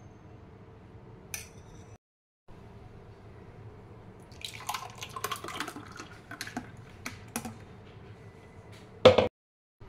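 Thick ice apple smoothie pouring from a blender jar into a glass, with irregular wet splashing and dripping for a few seconds; a short, loud knock comes near the end.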